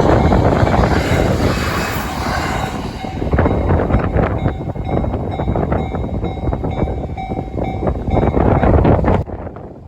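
A train passing through a level crossing, its wheels clattering over the rails, with wind buffeting the microphone. The train noise drops off suddenly near the end, leaving the wind.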